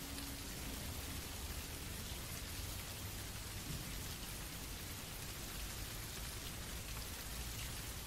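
Steady rain falling: an ambient rain track with an even hiss and a low rumble underneath.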